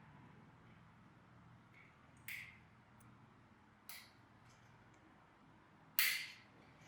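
A few short, sharp clicks of small hard parts being handled, three of them clear and the loudest about six seconds in, over quiet room tone.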